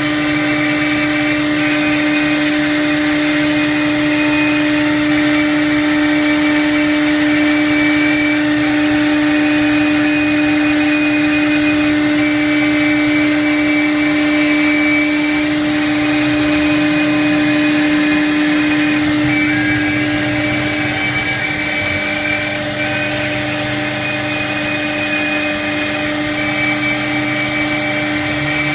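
CNC router spindle running at a steady high whine while the bit mills MDF, with a rough cutting noise under it that shifts as the tool moves and eases a little about two-thirds of the way through.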